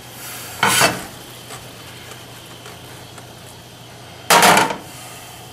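Two brief, loud handling noises, about three and a half seconds apart, over a low steady hum.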